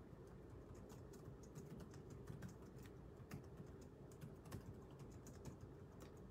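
Faint, irregular clicking of keys on a computer keyboard being typed on.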